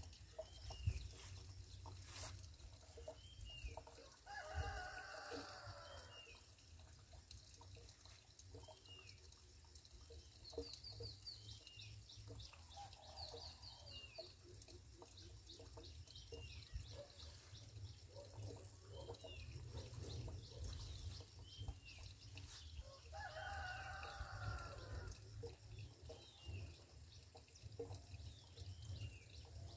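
A rooster crowing faintly twice, once about four seconds in and again near the end, over small repeated bird chirps.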